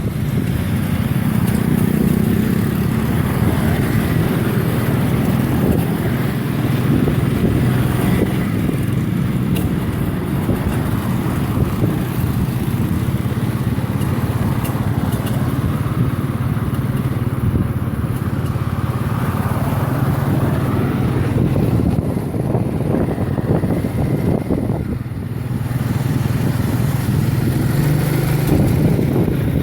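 Motorcycle engine running through a ride, a steady drone that eases off slightly about three-quarters of the way through and then picks up again.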